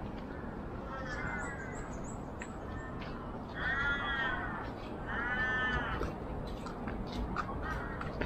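An animal calling three times, each call drawn out and rising then falling in pitch. The first is faint; the second and third, about a second and a half apart, are louder.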